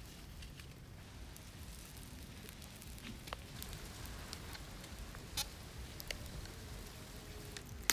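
Charcoal fire crackling faintly under a roasting duck, with scattered sharp pops over a low steady rumble.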